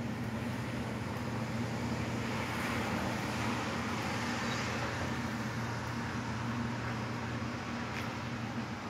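Steady low hum from an articulated tram's onboard equipment as it stands at a stop. In the middle, a broad hiss like tyres on a wet road swells and then fades.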